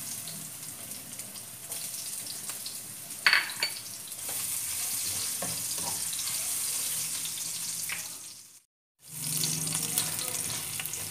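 Ginger sizzling in hot cooking oil in a frying pan, a steady hiss, with one sharp clatter about three seconds in. The sizzle cuts out for a moment about three-quarters of the way through, then comes back.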